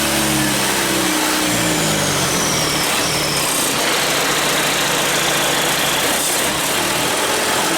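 Mitsubishi 4D34 inline-four turbo diesel engine running on a test run. Its pitch falls over the first couple of seconds, with a high whistle gliding down, then it runs steadily.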